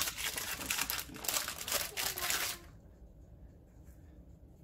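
Parchment baking paper crinkling and crackling as a frozen Nutella disc is peeled off it, stopping after about two and a half seconds.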